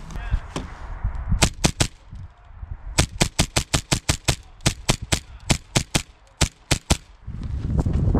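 Airsoft gun firing a string of rapid single shots, sharp cracks. A quick three about a second and a half in, then after a short pause a long irregular run at about five shots a second until about seven seconds in.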